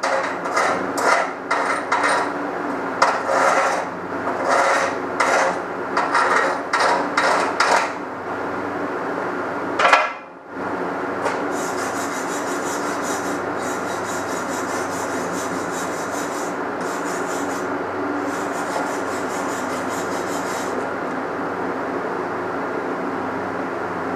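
A slag or chipping hammer knocking slag off a 6013 stick-weld bead, sharp knocks in quick groups of about two a second. They give way, after a bang about ten seconds in, to a steady scraping over the bead that runs for about ten seconds.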